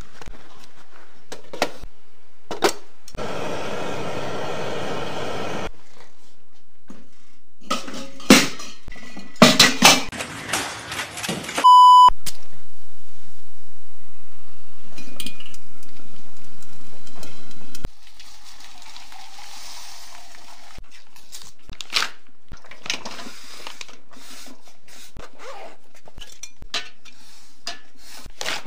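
A run of handling sounds: a knife slitting packing tape on cardboard boxes, then clattering and knocking of a metal hot pot and utensils. One short electronic beep sounds about twelve seconds in.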